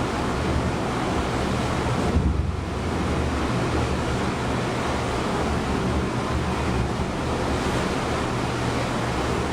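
Ocean waves and wind rushing steadily, with wind buffeting the microphone in a low rumble and a brief low bump about two seconds in.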